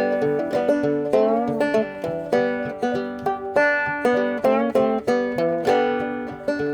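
Solo banjo being picked, a steady run of plucked notes, several a second, each ringing briefly.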